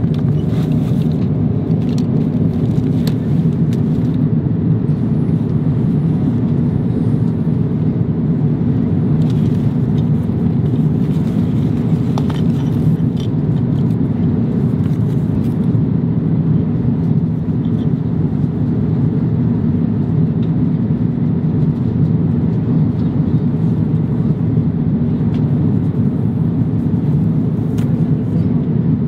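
Steady in-flight cabin rumble of an Airbus A350-900ULR, the even roar of airflow and engines heard from a passenger seat. Faint clicks and rustles turn up now and then as the amenity kit pouch and its packets are handled on the tray table.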